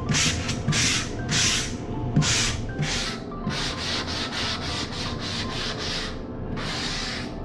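Hand-held sanding sponge rubbed back and forth over a drywall repair in its final sanding, a scratchy stroke with each pass. The strokes run faster and shorter in the middle and end with one longer stroke.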